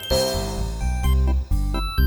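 Upbeat children's background music with a bouncy bass line and bright chiming notes.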